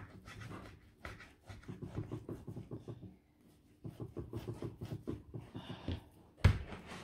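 Kitchen knife sawing through raw beef on a wooden cutting board: a run of short, irregular rasping strokes and light knocks, with one louder knock about six and a half seconds in.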